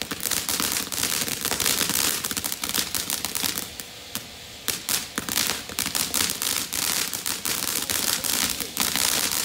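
Pyro Demon 'Everlasting Mayhem' ground fountain firework burning: a hissing spray of sparks with dense, rapid crackling. The crackling drops to a quieter, steadier hiss for about a second midway, then comes back.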